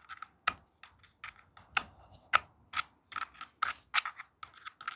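Light, irregular clicking as a tool turns the chain-tensioning screw on a cordless mini chainsaw to tighten the chain, with the motor off.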